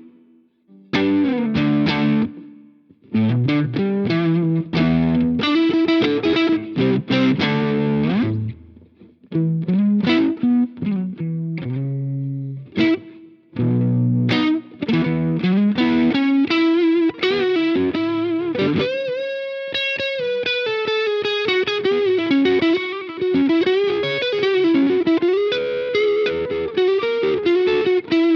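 Electric guitar played through a Jeds Peds Wasteman overdrive pedal, a tubescreamer-style drive with a clean blend. It plays choppy distorted chords and riffs with short breaks, then about two-thirds of the way through holds a long note and goes into a single-note lead line with bends and vibrato.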